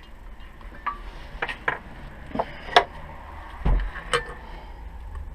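Steel bearing-press adaptor discs clinking and knocking as they are picked out and tried against the wheel bearing: a string of sharp metallic clicks, with a duller knock about two thirds of the way in.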